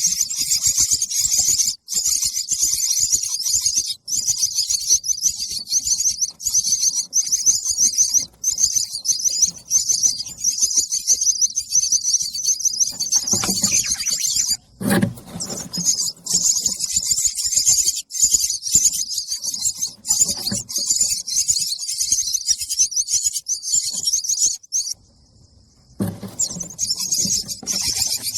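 Nestling birds giving rapid, continuous high-pitched begging chirps for food, with short breaks and a brief lull near the end. A low thump sounds about halfway through.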